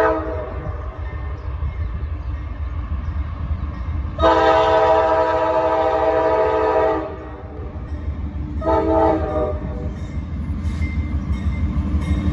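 Norfolk Southern diesel freight locomotive's multi-chime air horn sounding for a grade crossing: a brief blast at the start, a long blast of about three seconds a few seconds in, then a shorter one, over the low rumble of the approaching locomotives, which grows louder toward the end.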